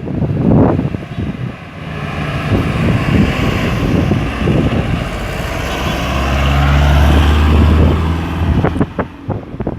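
Road traffic moving through a roundabout: vehicles pass with tyre hiss, and a heavy vehicle's engine hums low for a couple of seconds about six seconds in. Gusts of wind buffet the microphone near the start and end.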